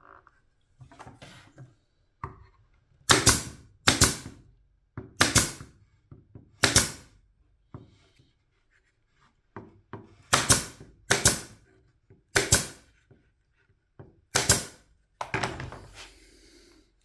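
Sharp knocks, often two close together, as pins are tapped in to hold a freshly glued panel of the power supply case. Softer taps and handling sounds fall between them.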